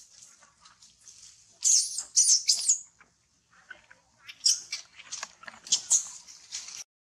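Macaques giving short, shrill, high-pitched squeals. The loudest are three in quick succession about two seconds in, and more scattered squeals follow later.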